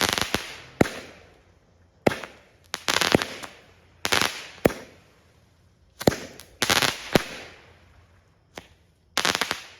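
Mad Hornet Red Flame Wheel, a 200 gram consumer firework cake, firing shot after shot: sharp reports and clusters of crackle roughly every second, the last burst near the end.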